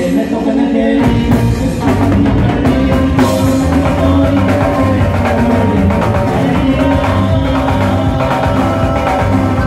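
Live norteño band playing: button accordion carrying held notes over electric bass, a stringed rhythm instrument (bajo sexto) and a drum kit keeping a steady beat.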